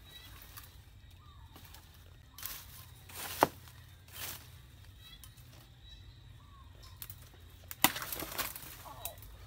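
Machete chopping into tree roots and brush: two sharp strikes, about three and a half seconds in and again near eight seconds, each with a rustle of branches around it.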